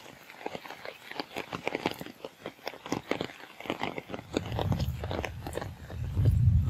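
Hailstones pelting down, a dense, irregular patter of sharp clicks and knocks. A low rumble builds from about four seconds in and grows loudest near the end.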